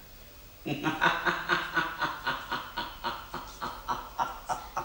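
A man laughing: a long run of short chuckles, about four a second, starting about half a second in and trailing off near the end.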